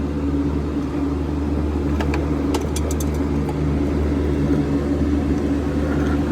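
A 3.3 L V6 minivan engine idling steadily, with a few light clicks about two to three seconds in.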